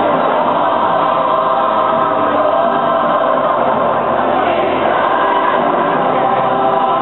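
A large choir singing a slow piece in long held notes.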